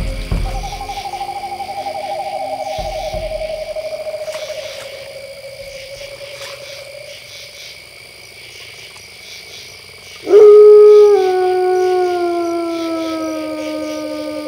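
Two long wolf howls. The first wavers and slides slowly down in pitch for about six seconds. The second starts about ten seconds in and is the loudest sound here, lower in pitch; it drops a step and then keeps gliding slowly down.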